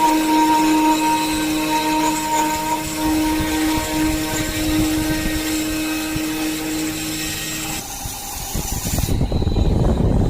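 Key-cutting machine running steadily as it cuts a car key, a steady motor hum that stops about eight seconds in. A low rumbling noise follows near the end.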